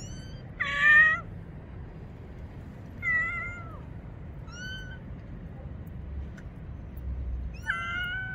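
Street kitten meowing five times in high, short meows a second or more apart, the loudest about a second in and a longer, drawn-out meow near the end.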